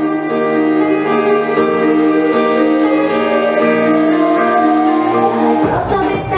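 Pop song intro: sustained chords with a slowly rising tone over them, then the full band and a beat come in near the end.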